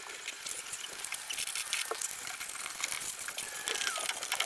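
Rubber glazing strip being pressed by hand into the groove of an aluminium frame: a steady run of faint, rapid clicking and rustling. A brief falling chirp sounds near the end.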